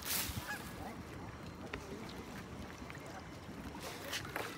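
Open-air ambience with faint voices, a brief rush of noise at the start and another about four seconds in.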